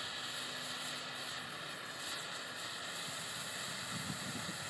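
Dominator 60-second color torch firework burning with a green flame, giving off a steady hiss.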